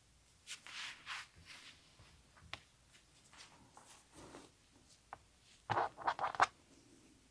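Fabric being handled and folded, rustling softly, with a quick run of four or five sharp scratchy strokes about six seconds in.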